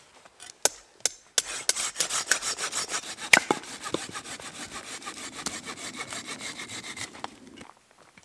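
Hand pruning saw cutting through a birch branch in quick, steady back-and-forth strokes. The sawing starts about a second and a half in, after a couple of sharp knocks, and stops near the end.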